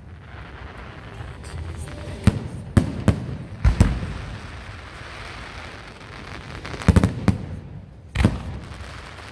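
Aerial firework shells bursting overhead: a run of sharp bangs, a cluster of about four from two to four seconds in, and another three from about seven to eight seconds in.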